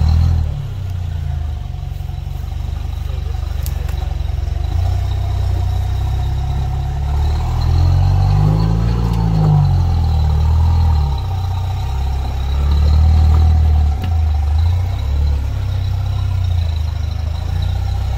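A rock crawler's engine runs low and labouring as the vehicle climbs over boulders, with the throttle worked up and down. The revs rise and fall once about halfway through.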